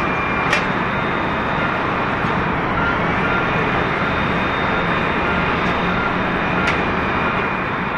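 Japan Airlines Airbus A350-900's Rolls-Royce Trent XWB jet engines running at low power as the airliner taxis: a steady rushing hum with a thin high whine. Two short clicks come about half a second in and near the end.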